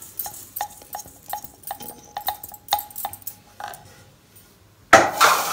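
Roasted semolina tipped from a pan into a stainless steel bowl, with a run of light irregular taps as the pan knocks against the bowl and a faint steady ringing from the metal. About five seconds in comes a sudden louder clatter.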